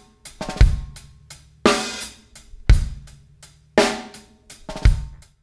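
Drum-heavy music track: a hard kick-and-crash hit about once a second, with hi-hat and snare between and held pitched notes underneath.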